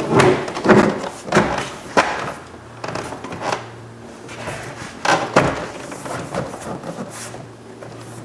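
Plastic interior door trim panel knocking and clicking as it is pushed up onto the window ledge and pressed against the door: a quick run of knocks in the first two seconds, then a few softer ones around the middle and near the end.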